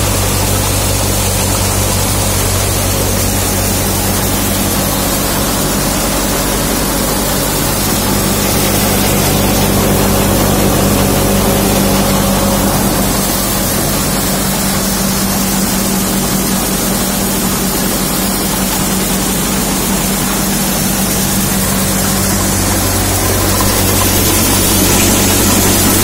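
MM Punni CS model multi-crop thresher running steadily while threshing chickpeas: a loud, even low mechanical hum under a continuous hiss.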